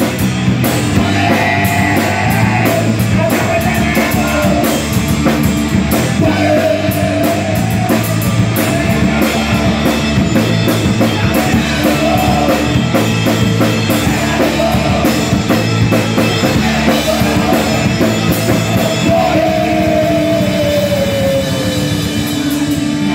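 Punk rock band playing live: distorted electric guitar, bass guitar and a drum kit with steady cymbal hits, in a fast, loud rock song.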